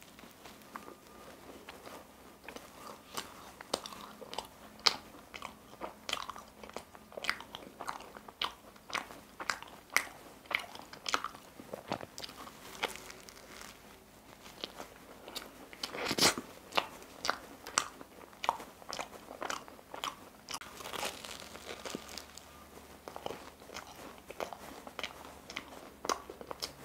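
Biting into and chewing a crisp, cream-filled tiramisu pie: many sharp, irregular crunches of flaky pastry, with softer chewing in between.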